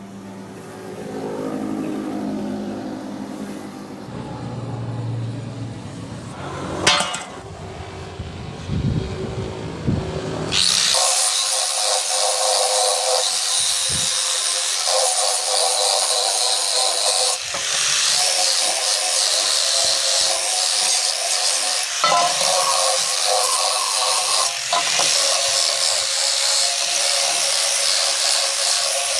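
Electric arc welding on thin square steel tube: a steady crackling hiss sets in about ten seconds in and runs on, changing briefly three times. Before it, a lower tool sound works the metal, with one sharp knock.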